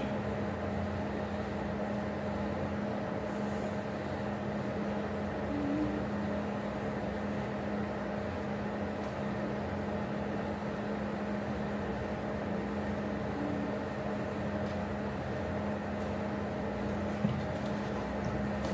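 A steady mechanical hum with one constant low tone and a fainter higher tone, like an appliance or air conditioning running, with a single short tap near the end.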